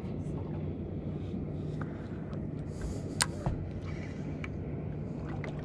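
Steady low hum of an idling outboard motor, with a single sharp click about three seconds in.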